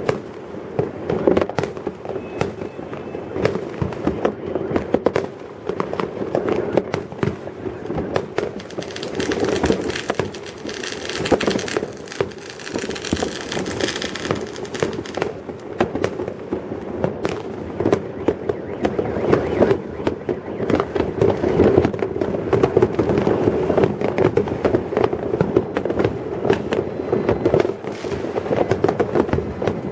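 Many fireworks and firecrackers going off at once across a town: a dense, continuous series of bangs and pops over a steady rumble. For a few seconds, from about nine seconds in, a hissing crackle rises above it.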